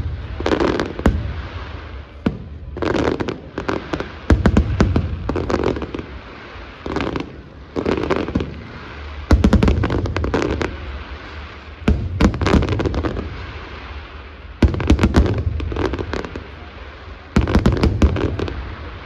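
Fireworks going off in repeated volleys: clusters of sharp bangs and crackles every second or two, with quieter gaps between them.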